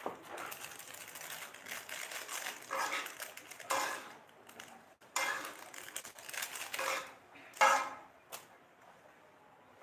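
A dog barking in a string of short barks, with pauses between them.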